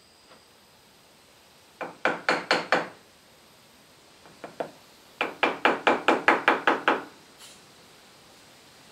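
Quick hammer blows on wood: a run of about five strikes, a few lighter taps, then a longer run of about a dozen strikes at roughly six a second.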